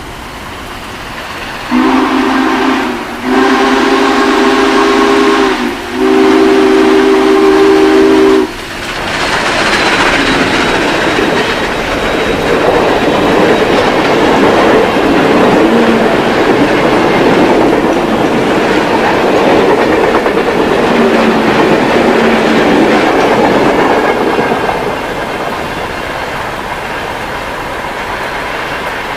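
Steam locomotive whistle blowing three blasts, a short one and then two long ones, followed by the loud rush and rail clatter of a passing steam train that eases off near the end.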